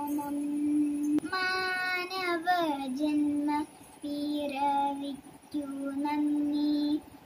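A young girl singing a Malayalam prayer song alone, unaccompanied, holding long, mostly level notes in short phrases with brief pauses between them.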